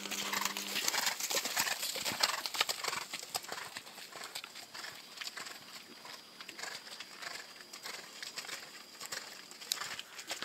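Horse's hoofbeats on a sand arena as it canters, a run of dull knocks that is loudest in the first few seconds.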